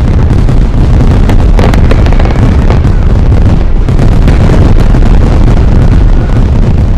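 A dense, continuous fireworks barrage: overlapping booms and crackles with a heavy low rumble, very loud throughout.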